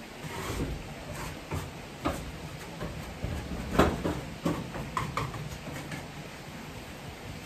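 A shovel or scraper scraping up chicken droppings from a coop floor: irregular scrapes and knocks, the loudest about four seconds in.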